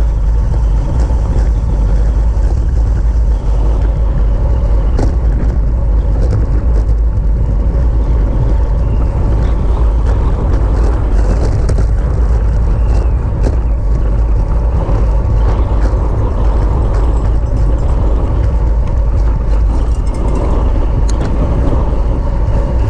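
Steady wind rumble on the microphone of a camera riding along on a racing bicycle, with tyre and road noise and a few scattered light clicks.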